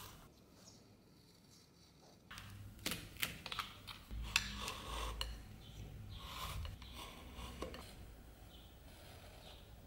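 Utility knife cutting a leather strip along a steel ruler: scattered light clicks and scrapes of the blade and metal ruler on the bench, starting about two seconds in, with a dull bump about four seconds in.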